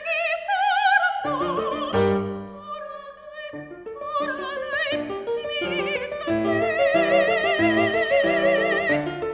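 Soprano singing a Korean art song with wide vibrato over piano accompaniment, holding a long note over the last few seconds.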